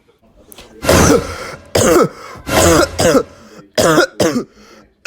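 A person coughing hard about six times in quick succession, harsh throaty coughs with the first the longest and loudest.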